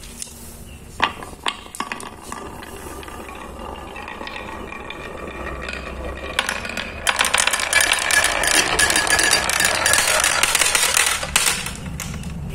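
Marbles rolling down a handmade wooden marble run: a few sharp clacks as they are dropped onto the wavy carved wooden track, then a rattling roll that builds into a dense, loud clatter about seven seconds in and stops suddenly shortly before the end.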